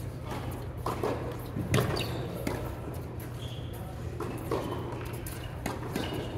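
Scattered tennis ball bounces and knocks echoing in a large indoor tennis hall, about half a dozen, the loudest about two seconds in, over a steady low hum and faint distant voices.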